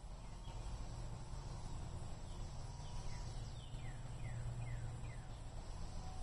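Outdoor ambience: a low steady rumble, with a bird giving a quick run of short falling chirps about two to four seconds in.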